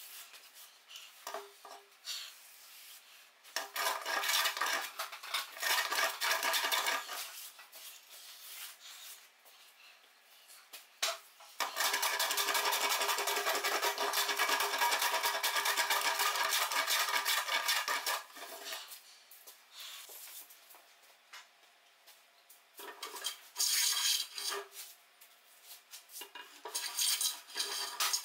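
Metal hand plane shaving across a laminated wooden benchtop in quick back-and-forth strokes, a scraping hiss with a metallic edge. Short runs of strokes come about four seconds in and near the end, with a long unbroken run in the middle.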